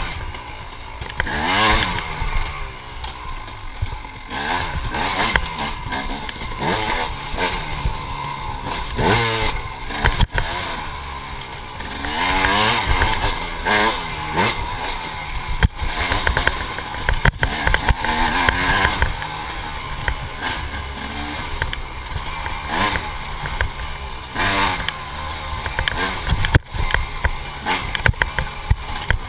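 Dirt bike engine revving up and down as it is ridden along a trail, its pitch repeatedly rising and falling, with a few sharp knocks from the bike over the bumps.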